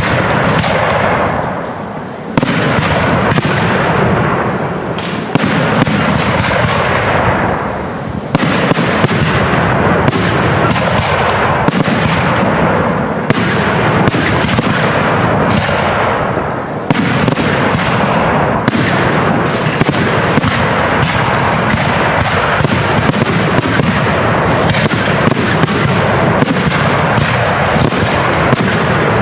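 Aerial fireworks shells bursting overhead, one bang after another with the sound dying away between them, then from about halfway through a dense, near-continuous barrage of bangs.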